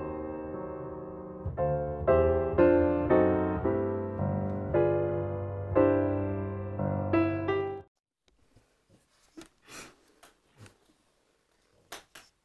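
Background piano music, notes struck one after another, stopping abruptly about eight seconds in; then near quiet with a few faint rustles and clicks.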